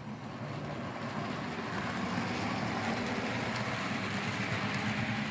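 Athearn model diesel locomotive running along a model railroad track. Its sound grows louder over the first couple of seconds as it approaches, then holds steady.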